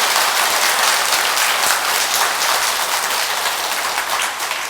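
Audience applauding: many people clapping steadily, easing off near the end.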